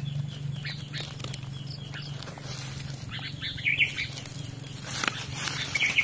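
Fingers scraping and digging in loose, root-laced garden soil, with short bird chirps in the background.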